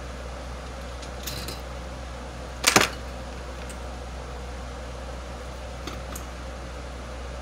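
Small metal parts of a blower fan motor being handled and worked loose by hand: a few light clicks and one louder, sharp metallic clatter about three seconds in. A steady low hum runs underneath.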